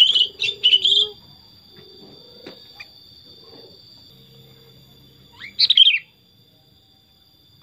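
Sooty-headed bulbul (kutilang) singing: a quick run of bubbly chirps in the first second, then one loud downward-sweeping phrase about five and a half seconds in.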